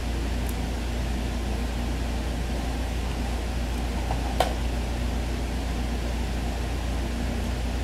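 Steady low hum with an even hiss of background noise, like a running fan or air conditioner, with a single sharp click about four and a half seconds in.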